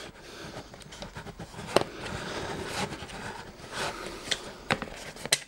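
Handling noise of over-ear headphones being twisted free of their packaging holder: soft rustling with scattered sharp clicks and taps.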